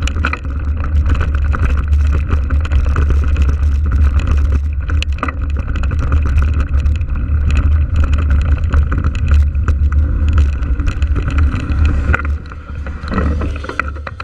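Wind rumbling on the microphone of a bike-mounted action camera as a mountain bike rides across grass, with scattered knocks and rattles from the bike over bumps. It dies down near the end as the bike slows to a stop.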